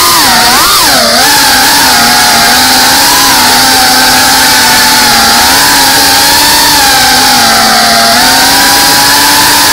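Brushless motors and ducted 3.5-inch propellers of a GEPRC Cinelog 35 FPV quadcopter whining loudly, heard through its onboard camera's microphone. The pitch wavers with throttle, dipping and rising twice in the first second or so, then holding fairly steady with a slight sag about eight seconds in.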